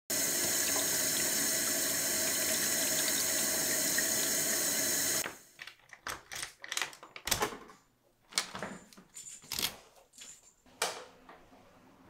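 Water running hard and steadily from a tap, cut off abruptly about five seconds in. Then a run of sharp clicks and small knocks at a door's rim nightlatch, with a louder click near the end.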